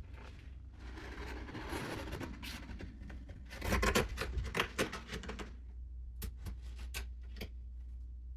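Old caulk being scraped and scrubbed off a countertop: a stretch of rubbing, then a run of quick scraping strokes about four seconds in, followed by a few light scrapes and clicks.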